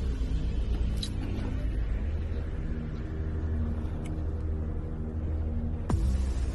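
Fishing boat's engine running with a steady low rumble, with a couple of faint clicks and a sharp knock near the end.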